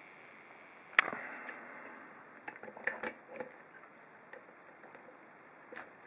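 Sharp metallic click about a second in, with a short ringing tail, then a few lighter clicks and knocks: a picked-open ASSA 2 padlock being handled in a vise.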